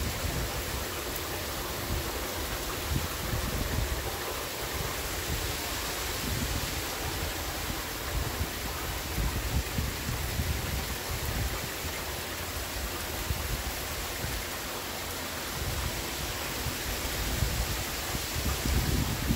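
Heavy rain falling steadily, a dense even hiss, with an uneven low rumble of wind buffeting the microphone now and then.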